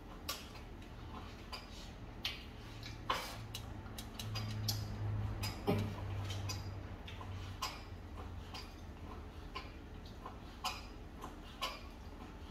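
Knife tapping on a cutting board as vegetables are sliced by hand: sharp, irregular ticks, roughly one every half second to a second. A low hum rises a few seconds in and fades after the middle.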